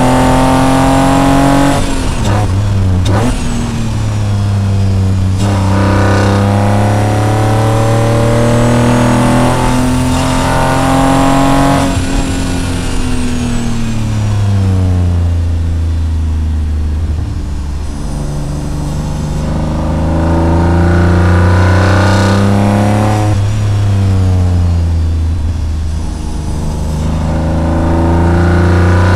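BMW E36's swapped-in M54B30 3.0-litre straight-six, breathing through headers and a Supersprint racing exhaust, pulling hard through the gears on a winding run. The revs climb and fall several times, dropping sharply about two seconds in and again around twelve seconds, and sinking more slowly in between as the throttle comes off.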